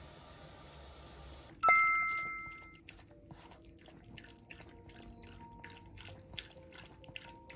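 A bell-like chime rings out about one and a half seconds in and fades over a second. Then a small dog laps water from a stainless-steel pet water fountain, soft even laps about three a second, over faint, gentle background music.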